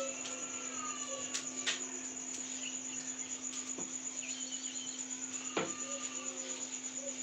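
A wooden rolling pin knocking lightly a few times on a round board as chapati dough is rolled out, the strongest knock about five and a half seconds in. Under it, a steady high-pitched chirring and a steady low hum.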